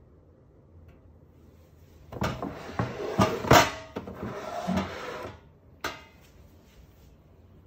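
Knocks and rubbing as an electronic weighing scale with a stainless-steel pan is handled and shifted on a wooden counter. It lasts about three seconds, with several sharp strikes, the loudest in the middle, and one more single knock shortly after.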